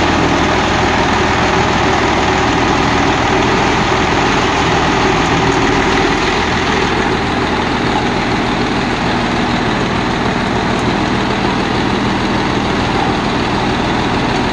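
The big diesel engine of a tracked rice combine harvester, badged Hino 260 HP, idling steadily through open chrome exhaust pipes.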